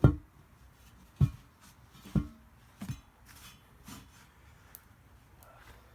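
Tire irons prying a tire bead off its rim: a series of five dull knocks and thuds, the first and loudest right at the start, the rest spaced about a second apart and fading.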